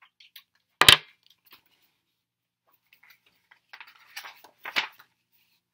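A single sharp knock about a second in, then the papery rustle of a picture book's pages being flipped quickly, about four seconds in.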